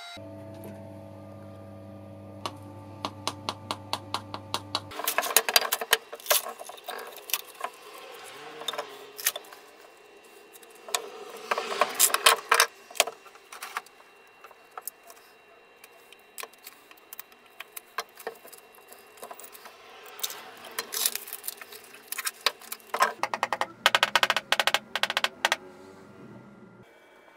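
Sharp clicks and clatter of hand work in the workshop: bar clamps being worked and handled, and wooden pieces knocked together, coming in clusters. Over the first few seconds a sustained low chord plays.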